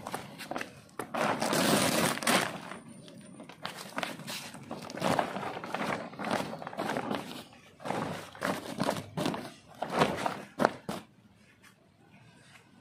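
Compost bag being handled and shifted: irregular rustling and crinkling of the bag, loudest in a longer scrape about a second in, with a few sharp knocks near the end.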